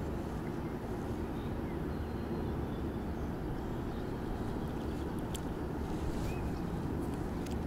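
Wind buffeting the microphone: a steady low rumble, with a few faint clicks.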